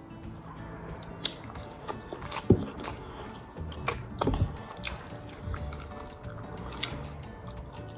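Chicken chow mein noodles being slurped and chewed with wet mouth sounds, broken by scattered sharp smacks and clicks. The loudest smack comes about two and a half seconds in.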